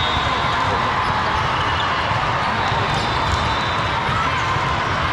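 Steady din of a large hall full of indoor volleyball play: balls being hit and bouncing on the courts amid crowd chatter.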